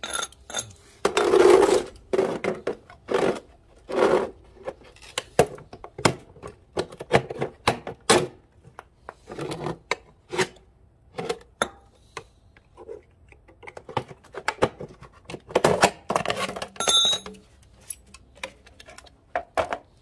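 Microwave oven door being pried apart with a steel pry bar, its plastic frame and glass panel giving irregular knocks, clicks and clinks.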